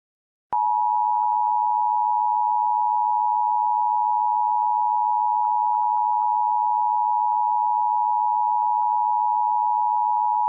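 Emergency Alert System attention signal: a loud, steady two-tone alarm tone near 1 kHz. It starts about half a second in, holds unchanged for about ten seconds and then cuts off abruptly.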